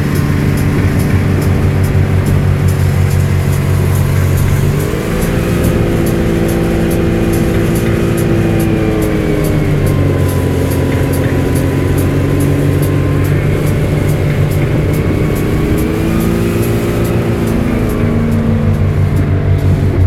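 Ski boat's inboard engine running at towing speed, its note stepping up about five seconds in, dropping back near the middle, then rising and falling again near the end, over the rush of wind and water.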